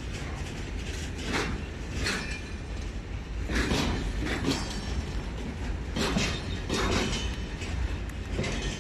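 Freight train of loaded flatcars rolling slowly past, its wheels clacking over rail joints every second or so, often in pairs, over a steady low rumble.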